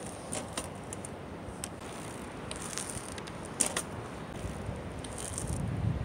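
Tern Crest minivelo bicycle rolling on concrete and having its rear wheel lifted and set down, with scattered clicks and rattles from the bike and one sharper knock about three and a half seconds in.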